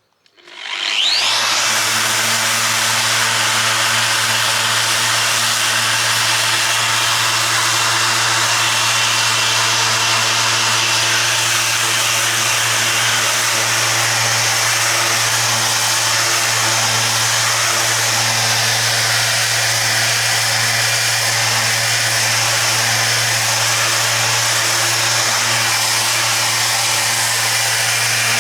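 Electric power sander starting about a second in with a short rising whine, then running steadily under load with a low hum and a wide hiss as it abrades the epoxy coating on a steel narrowboat hull.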